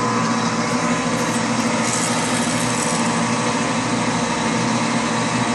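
Metal lathe running, its spindle turning a mild steel workpiece as the tool finishes a cut. A steady mechanical hum with several constant tones under an even hiss.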